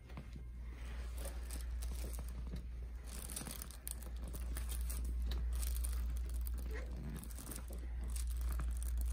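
Rustling and crinkling of fabric or table paper during hands-on shoulder work on a treatment table, growing busier about three seconds in, over a steady low hum.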